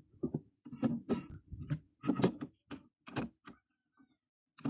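Irregular metallic knocks and clunks, about eight in three and a half seconds and one more at the end, as a rusty axe head is set between the jaws of a steel bench vise and the vise is worked.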